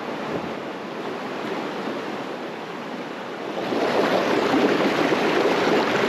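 The Ellis River, a shallow mountain stream, rushing over boulders and small cascades; the rush grows louder about three and a half seconds in.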